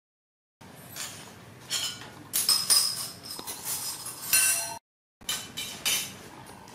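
A metal spoon clinking and scraping against a ceramic plate of mashed food, several sharp clinks with a short ring. The sound drops out to dead silence at the start and again briefly about five seconds in.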